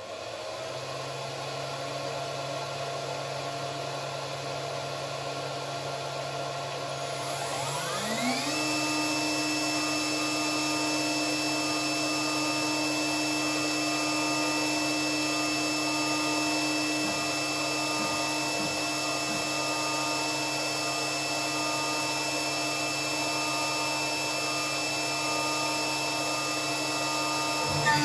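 Spinogy X22 CNC router spindle spinning up with a rising whine about eight seconds in, then running steadily at about 17,500 RPM with an even high whine, over a steady hum that comes on at the start.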